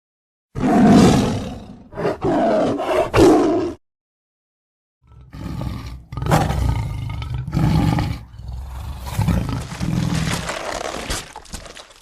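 Movie monster roar sound effects of the Tremors creatures: a rough roar of about three seconds with brief breaks, a second of silence, then a longer run of roars.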